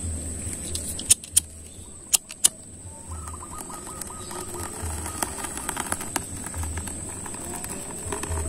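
A metal lighter clicked four times in two quick pairs. Then dry tinder catches in a clay stove and burns with a soft, scattered crackle.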